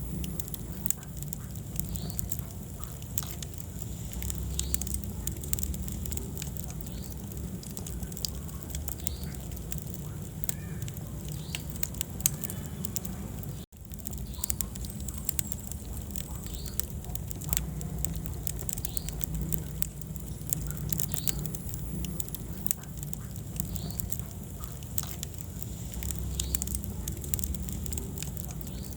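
Wood fire burning in a fireplace, with a constant low rumble and frequent sharp, irregular crackles and pops. The sound drops out for an instant about halfway through.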